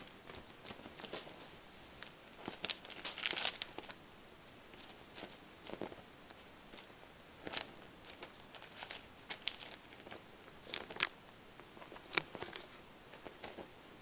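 Kitten playing, making irregular crinkling and rustling with light taps, in scattered spurts, busiest around three seconds in.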